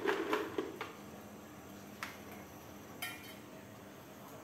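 Quiet room tone with a few light clicks and taps from kitchen containers being handled while a fish is seasoned: a cluster in the first second, then single taps about two and three seconds in.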